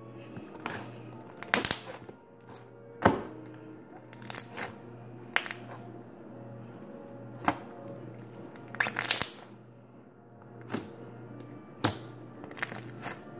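Slime being squeezed and pressed by hand, giving about a dozen sharp pops and clicks at irregular intervals, over faint background music.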